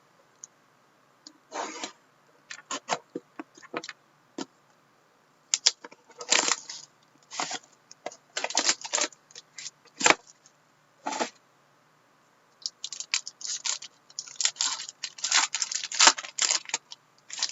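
A sealed trading-card box being unwrapped and opened by hand: irregular runs of crinkling, tearing and rustling of plastic wrap and cardboard, with a sharp click about ten seconds in.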